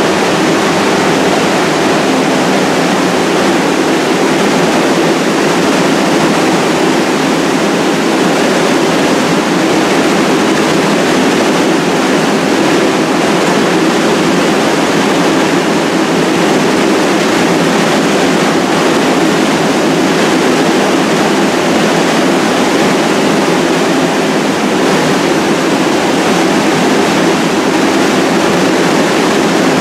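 Steady, loud rushing hum of a stalled subway train standing at the platform with its on-board equipment running. No train movement, no braking and no doors.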